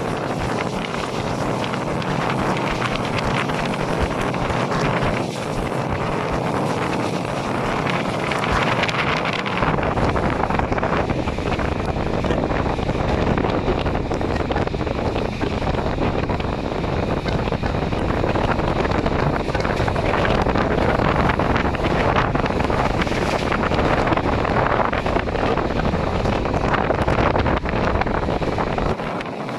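Wind rushing over the microphone at the open window of a moving passenger train, mixed with the train's steady running noise on the rails. A deeper rumble comes in about ten seconds in.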